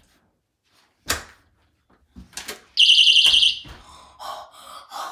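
Front-door latch clicking about a second in, then a loud, high electronic beep from the door's security sensor lasting just under a second as the door is opened.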